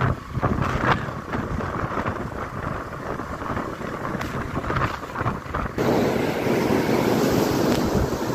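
Wind buffeting the microphone over a rushing background noise. About six seconds in, the sound switches abruptly to a louder, even hiss.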